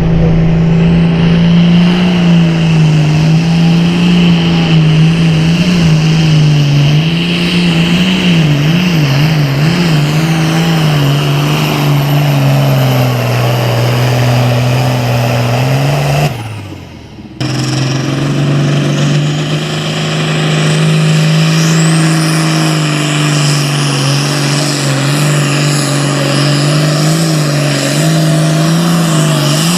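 Super Farm class pulling tractor's turbocharged diesel engine running hard at high revs during a pull, its pitch holding steady with some wavering. About halfway through, the sound cuts out for about a second and then comes back at the same pitch.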